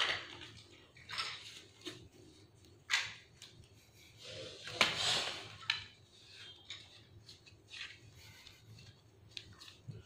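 A deck of playing cards being shuffled by hand: scattered soft rustles and taps of the cards at uneven intervals, the loudest rustle about five seconds in.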